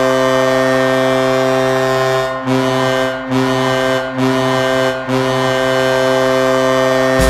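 Hockey arena goal horn blowing a loud multi-tone chord. It gives one long blast, then three short blasts a little under a second each, then another long blast.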